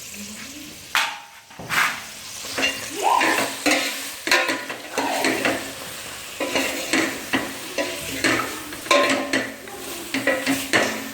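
Shredded chicken frying and sizzling in butter in a pot, stirred so that the utensil scrapes and knocks against the pot in irregular strokes.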